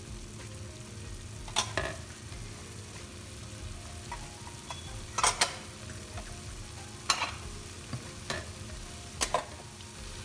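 Thick curry gravy sizzling gently in oil in a pan while a spoon stirs it, with a few sharp scrapes and knocks of the spoon against the pan. The masala is being fried on low heat until the oil separates from it.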